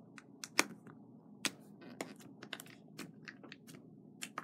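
Fingers pressing, flattening and poking a lump of slime on a table, making a run of small, irregular sticky clicks and pops, several a second, the sharpest about half a second and a second and a half in.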